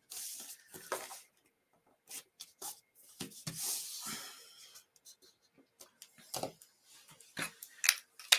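Soft rustling and light taps of hands smoothing and pressing freshly glued card-stock panels of a fold card flat against a wooden desk, with a few small clicks near the end.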